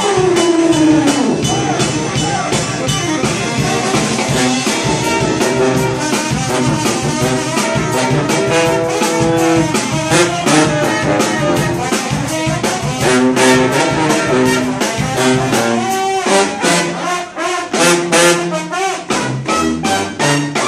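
Live brass band playing: sousaphone, trombone, trumpets and saxophones over a drum kit's steady beat. A horn slides down in pitch in the first couple of seconds.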